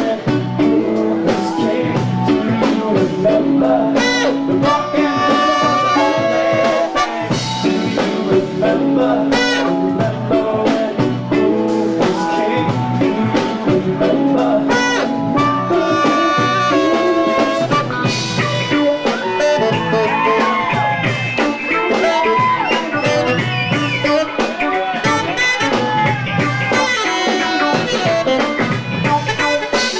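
Live band playing: drum kit, bass, guitar and keys under trumpet and saxophone lines.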